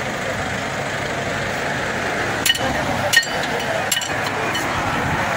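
Three sharp metallic clinks, roughly a second apart in the second half, as tools and parts knock against a car's bare front brake hub during a roadside repair, over a steady background noise.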